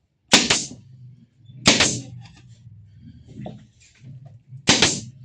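Three sharp shots into wood, the second about a second and a half after the first and the third three seconds later, each trailing off in a brief hiss, with lighter clatter in between.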